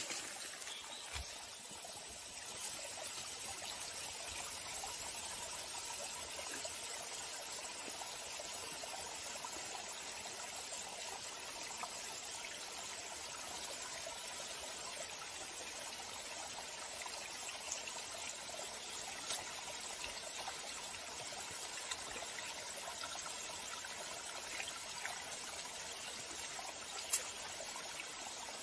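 Small stream of water trickling steadily over rocks, with a few faint ticks and one sharp click near the end.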